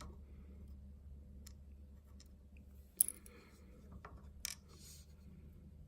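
Small metal lock-cylinder pins and parts being handled and sorted: a few light, sharp clicks, the sharpest about three seconds in and another about a second and a half later.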